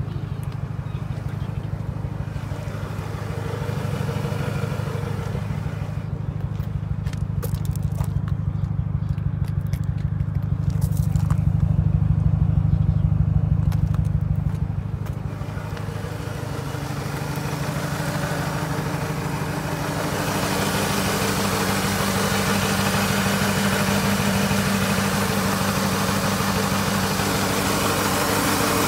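Mercedes-Benz engine idling: a steady low rumble with an even pulse, a little louder around the middle. From about two-thirds of the way in it turns brighter and busier, the engine heard close up from the open engine bay.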